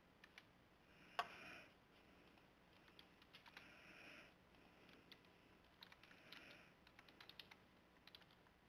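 Faint computer keyboard typing: scattered key clicks, with one sharper click about a second in.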